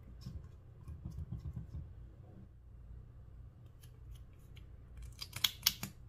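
Soft dabbing of a makeup brush on clear slime, then a quick run of sharp plastic clicks about five seconds in as a lip gloss tube is opened and its wand drawn out.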